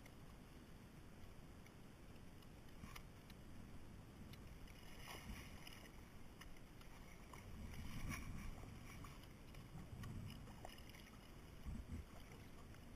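Kayak paddle dipping and splashing in the water, a few strokes a couple of seconds apart, over a low rumble.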